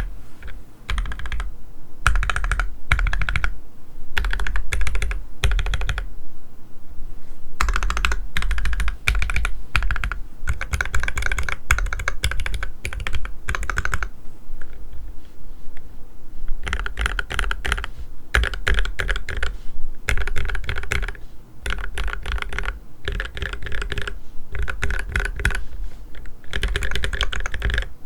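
Typing on a custom mechanical keyboard with lubed Gateron Black Ink V2 linear switches, a copper plate, a stacked acrylic case and GMK keycaps: quick runs of keystrokes broken by short gaps, with two longer pauses of about two seconds.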